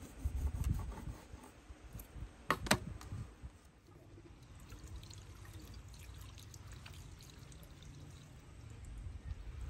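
A knife scraping a sheep's head on a metal tray, with a couple of sharp knocks, then, from about four seconds in, a steady stream of water poured from a clay jug over a sheep's foot as it is rubbed clean by hand.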